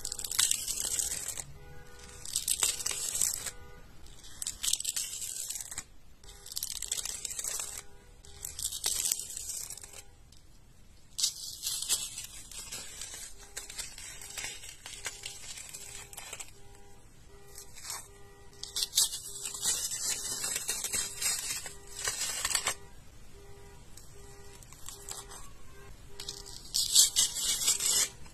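A thin dried coating being peeled off smooth and textured surfaces with tweezers and fingers, crackling and tearing in repeated bursts of about a second each, with a quieter stretch in the middle. Faint background music runs underneath.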